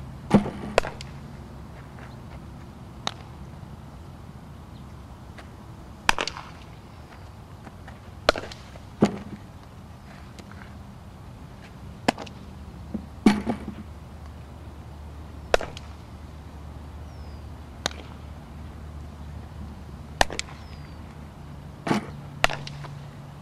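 About a dozen sharp cracks and pops of softball outfield practice: the ball being hit and smacking into a leather fielder's glove, some in quick pairs, over a steady low hum.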